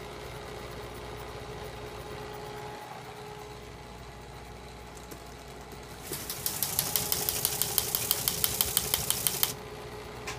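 Teletype Model 28 ASR with its motor running in a steady hum; about six seconds in it starts printing, a fast, even clatter of type strikes at about six characters a second that stops suddenly some three and a half seconds later. The strikes are the printer typing out characters received as audio tones through its acoustic coupler modem at 45.45 baud.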